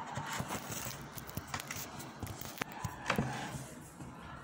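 Scattered light clicks, knocks and scrapes of kitchen handling: a spoon in a plastic mixing container and the phone that is recording being moved.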